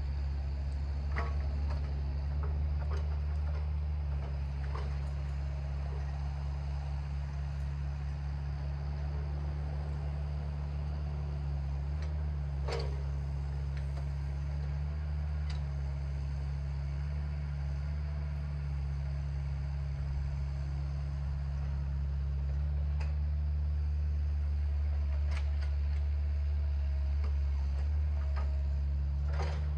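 Steady low drone of a running vehicle, with a few scattered clicks and light knocks over it.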